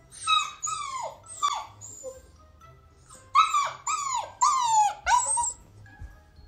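Husky puppy howling in a string of short yowls, each sliding down in pitch. About five come in the first two seconds, then four more after a short pause.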